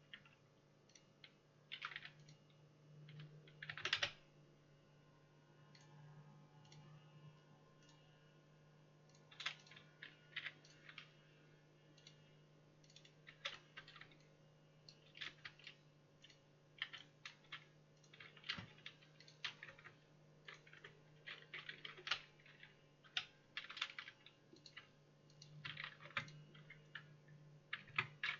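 Computer keyboard typing and clicking in irregular clusters of quick keystrokes with pauses between, over a faint, steady low hum.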